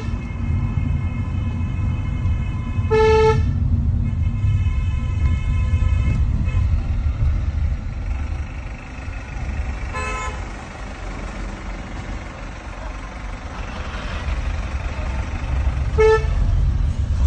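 Car horn sounding in short toots, four times, the second about three seconds in the longest, over the steady low rumble of the car's engine and tyres heard from inside the cabin.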